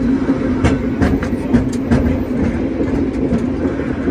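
San Francisco cable car rolling along its track with a steady running hum. Sharp clicks and rattles come in a cluster about a second in.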